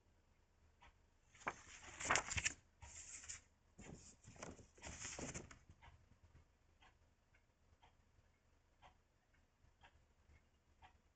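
Paper rustling and crinkling for a few seconds as a magazine is handled, its pages turned, amid faint scattered clicks.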